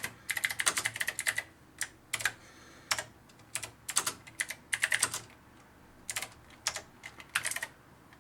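Typing on a Commodore 64C keyboard fitted with mechanical key switches: quick runs of sharp key clicks in irregular bursts, with short pauses between them.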